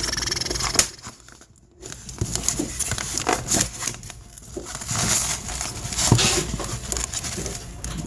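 Packaging crinkling and rustling as it is handled and opened by hand, with a short lull about a second in.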